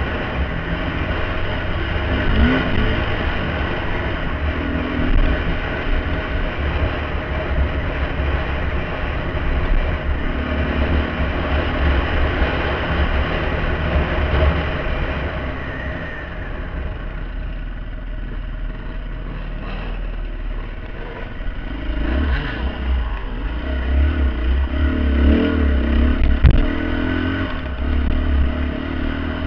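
Dirt bike engine running while riding a sandy trail, with wind and rumble buffeting the bike-mounted camera's microphone. The engine eases off in the middle, picks up again with rough jolting and a single knock near the end.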